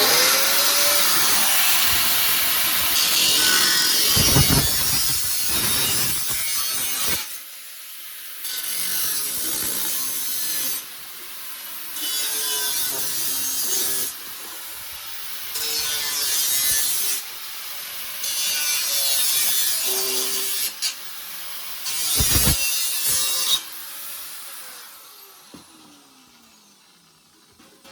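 Rough rasping tool work: about seven seconds of continuous scraping, then a run of shorter rasping strokes of a second or two each, with short pauses between, and a couple of heavy knocks.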